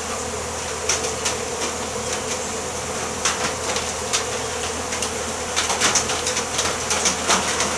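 Many honey bees buzzing steadily as they swarm over comb set out for them to feed on. Scattered sharp clicks run through the buzz.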